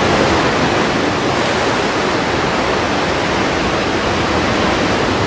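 Ocean surf making a steady, loud rush of white water.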